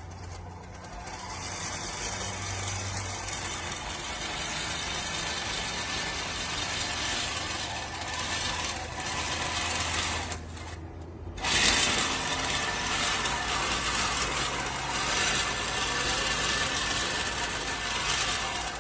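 LawnMaster LMRM1801 18-inch five-blade push reel mower being pushed through tall grass, its spinning reel cutting steadily. It pauses briefly about ten seconds in, then starts again a little louder.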